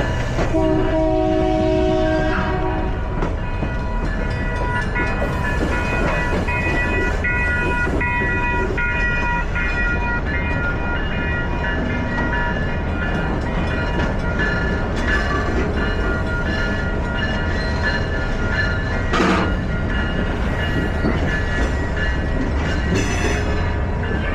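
The Napa Valley Wine Train rolling along the rails with a steady low rumble. Its horn sounds for about two seconds near the start, and high steady tones ride over the rumble for much of the rest.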